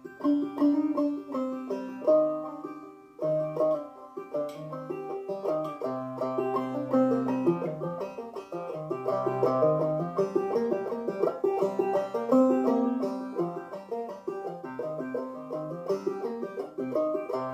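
Ome Tupelo five-string banjo played clawhammer style in double C tuning: a steady, unbroken run of plucked notes in an old-time minor tune.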